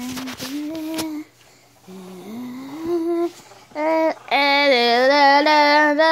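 A high voice singing a wordless tune: short notes sliding upward, then from about four seconds in louder, long held notes with vibrato.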